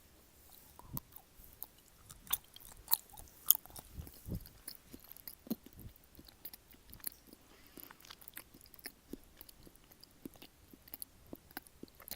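Close-miked chewing of a springy chocolate dessert: wet smacks and many quick mouth clicks, irregular, loudest in the first few seconds.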